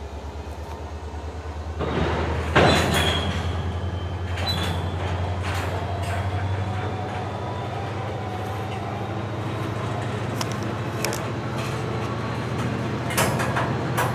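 Freight train of covered hopper cars rolling slowly through a rail yard: a steady low pulsing rumble from the wheels and trucks that builds over the first couple of seconds, with sharp metallic clanks about two and a half seconds in and again near the end, and a faint high wheel squeal early on.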